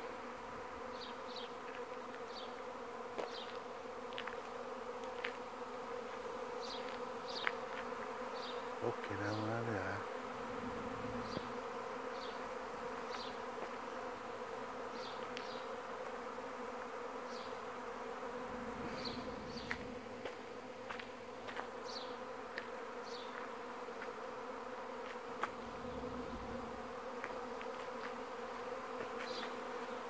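Swarming honeybees in flight: a steady, dense buzzing hum from a great many bees in the air.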